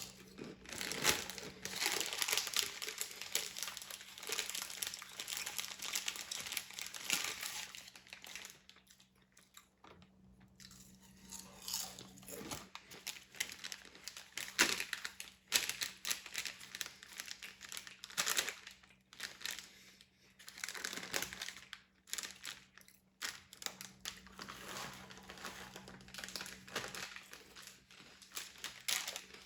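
Paper sandwich wrapper crinkling and a person chewing and biting into a sub sandwich close to the microphone, in irregular bursts, with a quieter stretch about nine seconds in.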